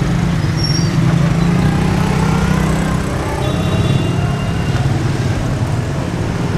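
Dense slow street traffic: motorcycles, motorcycle rickshaws and cars running close by, a steady low engine drone.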